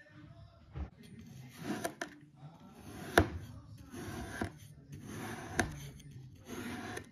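A metal fork slicing down through packed kinetic sand, with a rough, crumbly scraping at each stroke and three sharp clicks where the fork meets the plastic tray.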